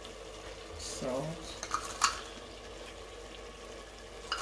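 A metal teaspoon tapping a few times with sharp clicks, the loudest about two seconds in, as salt is tipped from a small glass cup into a stainless steel pot. Under it, the tomato stew simmers with a faint, steady sizzle.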